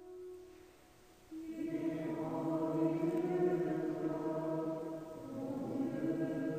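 A group of voices singing a French liturgical chant in long held notes, entering about a second in after a faint single held note.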